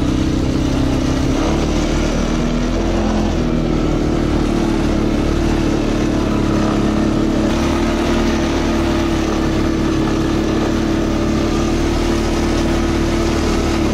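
ATV engine running steadily under way, its note shifting a little in the first few seconds and then holding even.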